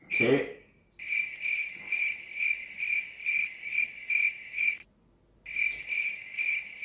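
Chirping-cricket sound effect: a high, even chirp pulsing about two and a half times a second, the stock 'awkward silence' gag. It cuts out abruptly for about half a second past the middle and then resumes.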